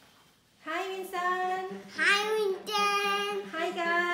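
A child singing a short tune in held, steady notes, starting about half a second in.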